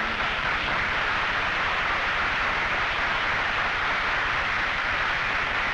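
Studio audience applauding steadily, a dense even clatter of many hands, heard through the narrow sound of an old television recording.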